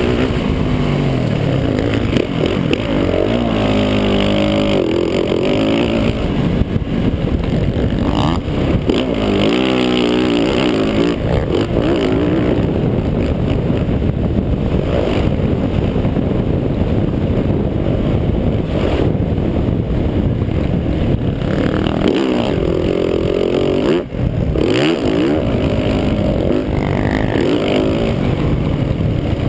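Motocross bike engine running hard, its pitch climbing and falling over and over as the rider accelerates and shifts. Heard from the rider's helmet camera, with a brief drop in the sound about two-thirds of the way through.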